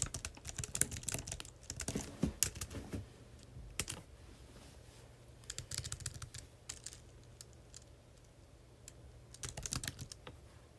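Typing on a computer keyboard: quick runs of key clicks in bursts, with short pauses between them, over a faint steady low hum.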